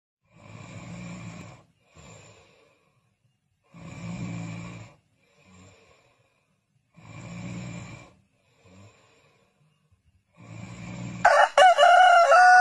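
A sleeping person snoring, four snores about three seconds apart, each followed by a softer breath out. About eleven seconds in a rooster crows, much louder than the snoring.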